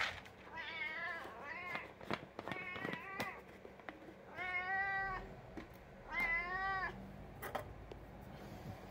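Domestic cat meowing repeatedly for its dry food, with short meows first and then two longer ones. A few sharp clicks fall between the meows.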